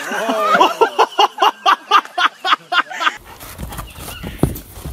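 A person laughing hard in quick, evenly repeated bursts, about four a second, for about three seconds. The laughter then cuts off to a low rumble with a single dull thud near the end.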